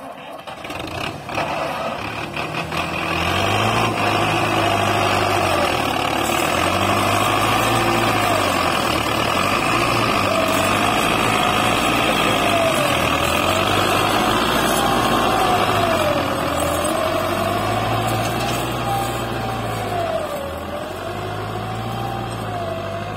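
Belarus 510 tractor's diesel engine running under load while pulling a tillage implement through the soil. Its pitch rises and falls as the load changes, with a wavering whine above it. It builds up over the first few seconds as the tractor comes close and eases off somewhat in the later part as it moves away.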